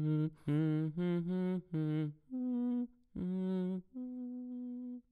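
A voice intoning a string of short held notes in a low register, each on one steady pitch with brief gaps between them. The pitch steps up to a higher note twice, and the last notes are longer.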